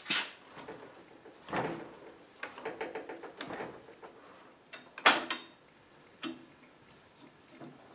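Metal clunks and knocks from a screw-on lathe chuck being turned by hand onto the threaded spindle and tightened. There is a sharp knock right at the start, another about a second and a half in, and a louder one about five seconds in, with lighter rattling between.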